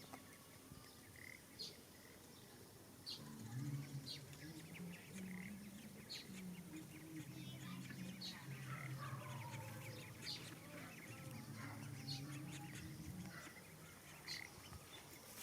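Faint bird calls: short high chirps about once a second, with a lower, drawn-out wavering call through the middle.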